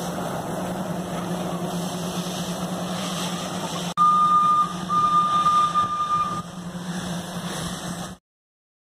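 A steady low engine hum runs throughout. About 4 s in, a train sounds two loud blasts on a single-pitched whistle: a short one, then one of about a second and a half.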